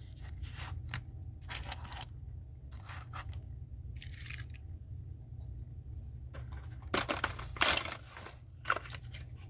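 Plastic blister packaging of a carded die-cast toy car being cut and torn open: scattered crinkling, tearing and scraping, loudest about seven to eight seconds in, over a steady low hum.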